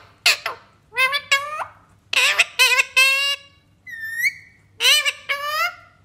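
Indian ringneck parakeet calling close by in a quick series of short squawks and chattering phrases, with a single clear rising whistle about four seconds in.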